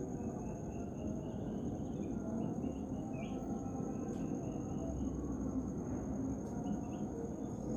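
Insects calling in a steady, unbroken high tone, with short chirps scattered around it and a constant low rumble underneath.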